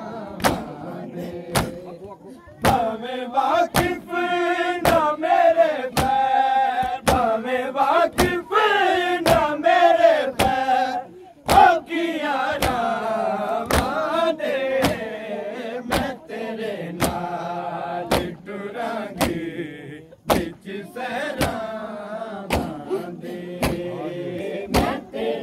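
A Punjabi noha chanted as a mourning lament, with rhythmic matam chest-beating: hand strikes on chests keep an even beat of just under two a second. The singing breaks off briefly twice, while the beat carries on.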